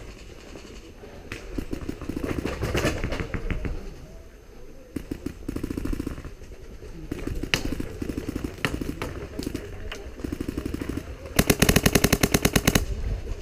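Repeated bursts of rapid fire from skirmish-game guns at close range: several short strings of shots through the first ten seconds, then the loudest and longest burst near the end, about a dozen shots a second.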